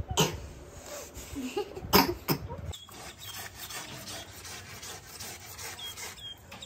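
Handling noise: the phone rubbing and knocking against bedding, with two or three sharp knocks in the first seconds. About three seconds in, it gives way to quiet outdoor background with a few short, high bird chirps.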